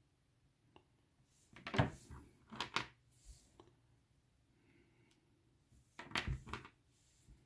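Plastic bags of miniatures being handled and crinkled, in two short bouts: about two seconds in and again about six seconds in.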